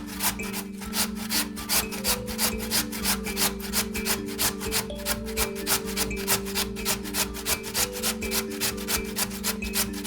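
Raw potato scraped in quick, regular strokes, about three a second, over steady background music.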